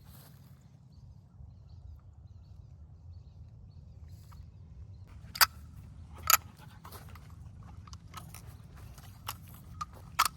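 A few short, sharp clicks: two loud ones about five and six seconds in, a couple of faint ones later and another loud one near the end, over a low steady rumble.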